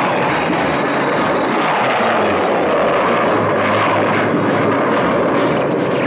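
Cartoon rocket-engine sound effect: a steady rushing thrust noise as the rocket climbs into space.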